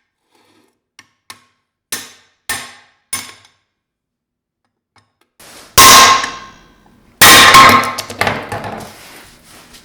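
Hammer blows driving a bearing out of a classic Mini 1275 A+ gearbox casing: three light knocks, then two hard, ringing metal strikes about a second and a half apart, the ringing dying away after each.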